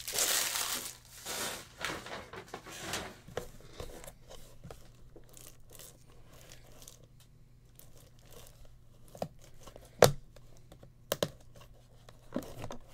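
Plastic shrink wrap on a trading-card hobby box crinkling and rustling as the box is handled. It is loudest in the first second or so, then comes in scattered softer crinkles, with a few sharp taps about ten and eleven seconds in.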